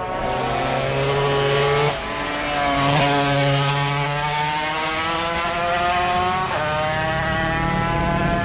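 Classic racing motorcycle engine accelerating, its pitch climbing steadily and dipping briefly at gear changes about three and six and a half seconds in.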